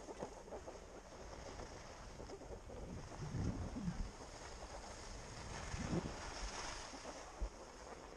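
Wind buffeting the microphone in low gusts, over a steady hiss.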